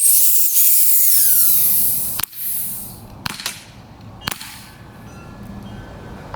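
A BB pistol shot punctures a pressurised aerosol spray paint can, which vents in a loud hiss for about two seconds with a whistle falling in pitch. A shorter second spurt of hiss follows, then a few sharp knocks.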